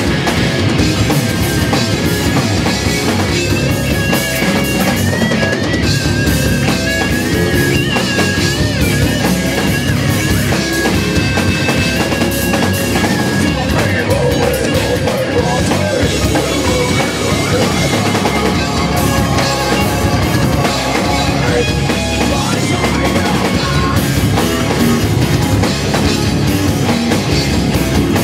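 Live rock band playing loudly: electric guitars, bass guitar and a drum kit, amplified through a club PA. A high held note wavers in pitch from about four to twelve seconds in.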